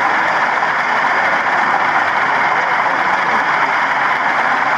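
Steady background din of a busy exhibition hall: crowd hubbub with no single voice standing out.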